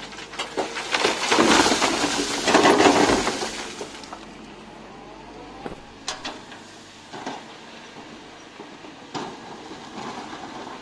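A bucketload of dirt and rocks dumped from a Kobelco EC220E excavator into the steel body of a Mahindra Blazo truck: a loud rushing clatter lasting about three seconds, followed by a few single knocks, over the excavator's steady engine hum.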